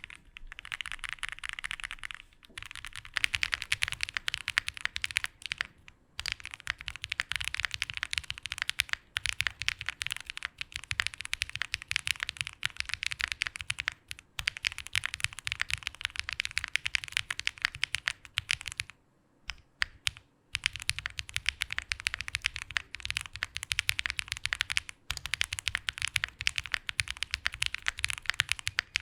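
Fast typing on an Answer Studio AS65 Final 65% mechanical keyboard with an FR4 gasket-mounted plate and GMK keycaps: rapid runs of keystrokes broken by a few short pauses, the longest about two-thirds of the way through.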